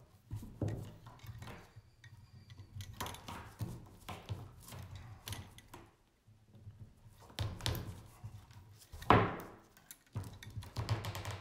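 Scattered rustling and clicking of round reed spokes and a woven reed basket base being handled, as a reed tail is worked through the spokes. One sharp knock about nine seconds in, the loudest sound, as the crimping tool is set down on the table.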